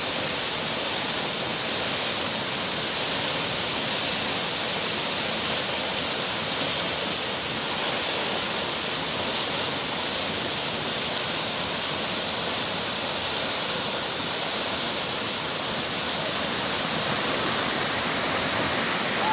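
Waterfall: a loud, steady rush of falling water, an even hiss without breaks.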